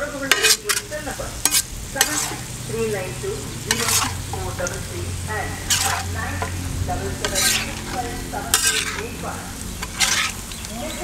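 A metal spatula scraping and turning chicken pieces in thick masala across a wide, shallow pan, with frying sizzle underneath. The sharp scrapes come every second or two.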